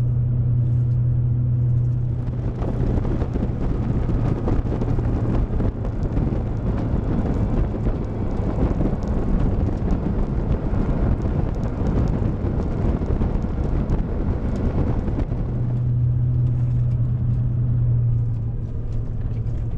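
Truck engine droning steadily with road noise, heard from inside the cab. From about 2 seconds in to about 15 seconds a louder, even rushing noise covers the engine hum, which then comes through clearly again.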